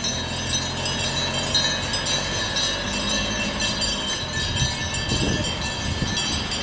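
Minivan engine running at low speed close by, a steady low hum, with high-pitched chirping in the background.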